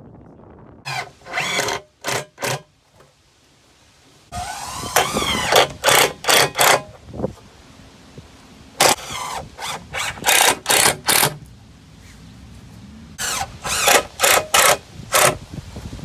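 Cordless drill driving screws through a plastic barrel wall into wooden blocks. It runs in short bursts of a fraction of a second, in three clusters, with one longer run of about a second that rises in pitch about four seconds in.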